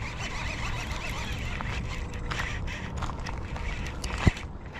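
Running footsteps with the jostle and rattle of carried gear over a steady low rumble, and a sharp knock about four seconds in.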